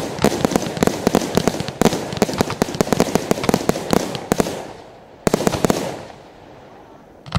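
Aerial fireworks display: a dense run of shell bursts and crackling bangs that thins out after about four and a half seconds, followed by a short burst of crackles and a single sharp bang near the end.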